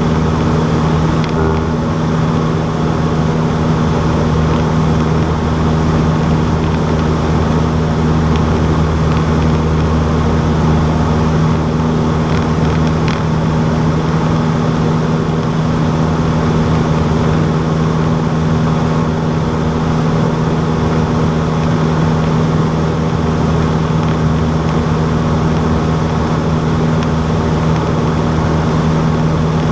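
Cessna 152's four-cylinder Lycoming engine and propeller running at a steady, unchanging speed: a loud, constant drone.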